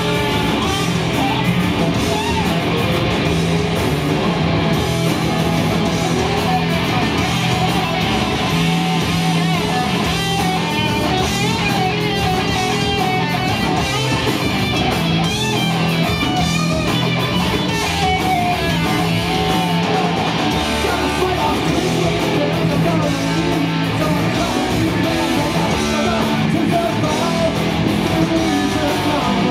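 Loud live rock band: distorted electric guitar through Marshall stacks over bass guitar and a pounding drum kit, heard from within the audience. A wavering lead-guitar line sits on top through the middle stretch.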